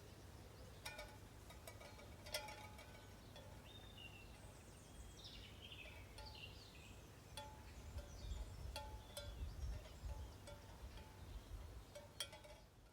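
Tin chimes of a sound sculpture clinking faintly at irregular intervals, each strike ringing briefly.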